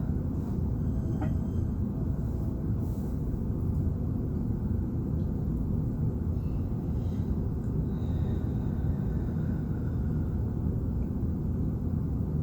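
Steady low rumbling background noise, with a few faint brief sounds over it.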